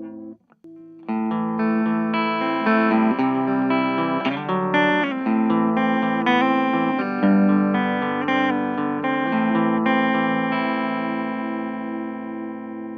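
Electric guitar with single-coil pickups, played dry through an Orange Micro Terror valve-preamp head with the gain backed off. Picked chords and notes with light breakup start about a second in, after a brief dropout, and the last chord is left ringing and slowly fading near the end.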